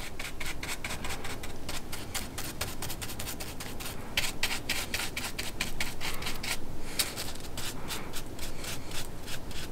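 A small paintbrush scrubbing and dabbing glue onto textured model scenery, the bristles rasping in quick, irregular strokes.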